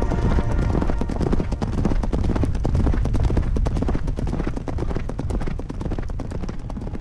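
Hoofbeats of horses moving at pace over desert sand: a fast, continuous run of thuds that gets a little quieter near the end.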